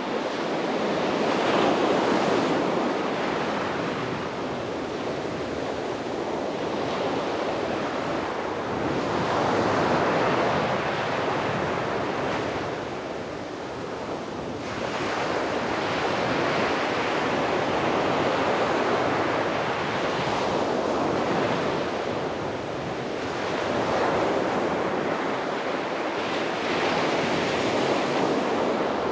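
Sea waves breaking and washing on a beach, a steady surf rush that swells and ebbs every few seconds, with some wind on the microphone.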